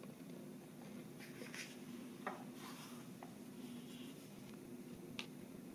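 Koh-i-Noor Hardtmuth graphite pencil writing on notebook paper: faint, short scratchy strokes, with a sharper tick near the end, over a steady low hum.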